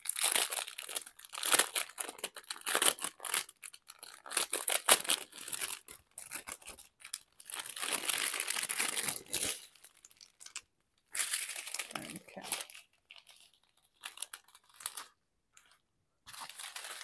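Crinkling of thin plastic as a strip of small sealed bags of diamond-painting drills is unfolded and handled, in irregular rustles with brief pauses about ten seconds in and again shortly before the end.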